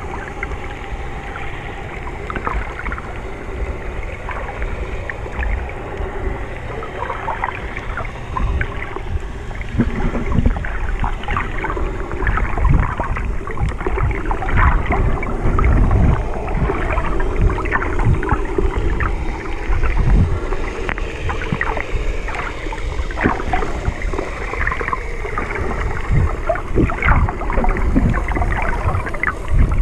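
Muffled underwater noise picked up by a camera held underwater: a constant low rumble and sloshing of moving water, with scattered crackles and pops and occasional low thumps. It grows a little louder about a third of the way in.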